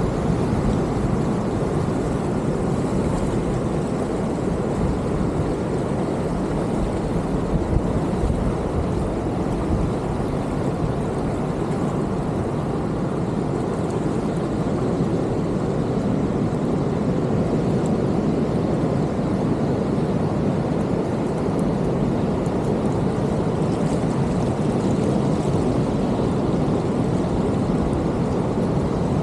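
Steady rushing of moving water, a creek and the surf, holding even throughout with no distinct events.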